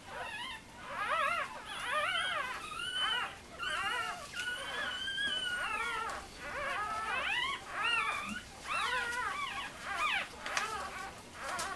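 Newborn Scottish terrier puppies crying: a run of high, squeaky rising-and-falling squeals, several at times overlapping, with one longer cry held near the middle.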